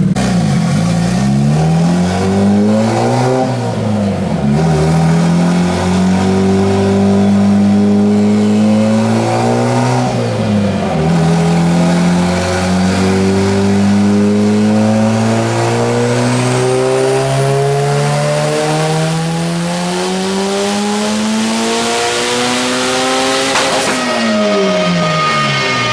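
Turbocharged Honda Civic engine on a chassis dyno under full throttle, its pitch climbing steadily, dropping sharply at two upshifts and climbing again, with a thin whine rising along with it. About 24 s in the throttle closes and the revs fall away.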